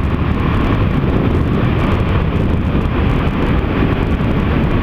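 Yamaha XT 660's single-cylinder engine running steadily at cruising speed, mixed with a steady rush of wind over the onboard camera's microphone.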